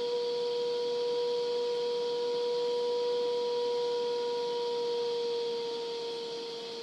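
Whistling test tube: sulfur vapour reacting with hot iron wool to form iron sulfide gives a steady, pure whistle over a steady hiss. Near the end the whistle sinks slightly in pitch and gets a little quieter.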